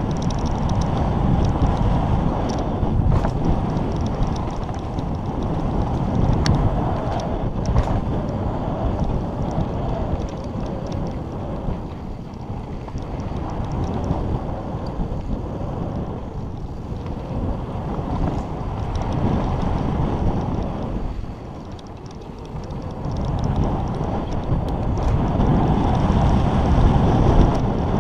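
Wind buffeting the camera microphone over the rumble of knobby mountain-bike tyres on a dry dirt trail during a fast descent, with a few sharp clacks from the bike over bumps. The rush eases briefly about three-quarters of the way through, then builds again.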